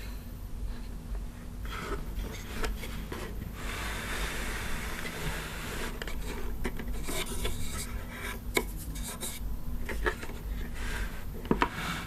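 Plastic handling sounds on a plastic animatronic Halloween display: rubbing and scraping across the plastic, with a longer continuous scrape a few seconds in and a few light clicks and taps in the second half.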